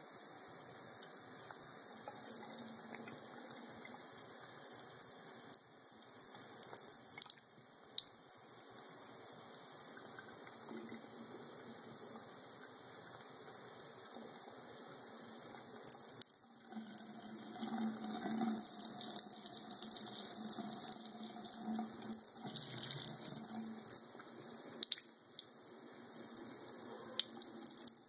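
Bathroom sink faucet running a thin stream that splashes over a drinking cat's head into the basin: a steady trickling and splashing, louder for a stretch in the second half, with a few sharp clicks.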